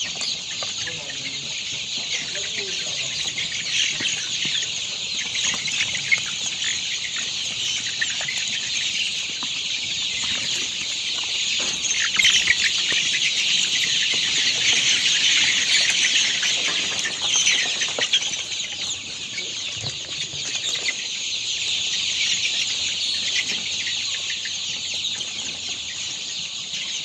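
A large flock of chickens in a poultry house calling all at once: a dense, continuous chorus of many overlapping high-pitched calls, swelling louder in the middle.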